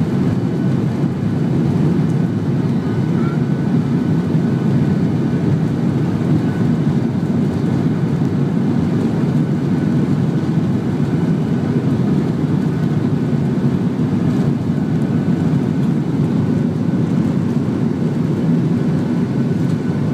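A Boeing 737-800's CFM56-7B jet engines and rushing air heard from inside the cabin: a steady, loud low rumble as the airliner rolls fast along the runway, with a faint high whine held throughout.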